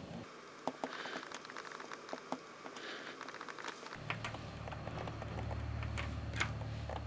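Steel U-gouge carving into a soft rubber pen grip: quiet scattered clicks and crackle as small shavings are cut away. About four seconds in a low hum comes in under further light clicks.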